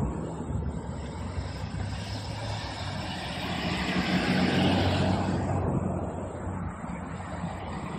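Norfolk Southern diesel freight locomotives running as they pull a train slowly past: a steady low engine hum under a rushing noise that swells about three to five seconds in, then eases off.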